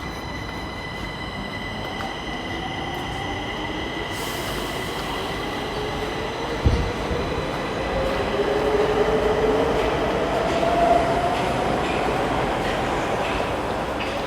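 Stockholm tunnelbana metro train running past, its electric traction motors whining up in pitch as it accelerates over the rails. A single thump comes about midway through.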